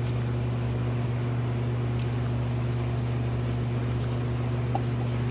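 A steady low hum with a strong, even tone, like a fan or other machine running in the background, with a couple of faint light taps.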